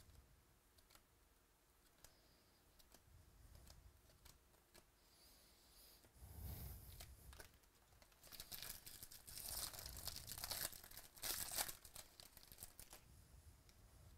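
Foil wrapper of a baseball card pack being torn open and crinkled, after a few soft clicks of cards being handled. The crinkling is loudest from about eight to twelve seconds in.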